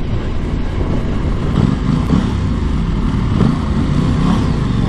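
Aprilia Tuono 660's parallel-twin engine running at low road speed, its revs rising and falling gently.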